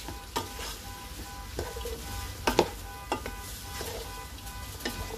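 Wooden spatula stirring chopped vegetables frying in a large pot: a steady sizzle with irregular sharp scrapes and knocks of the spatula against the pot, about seven of them.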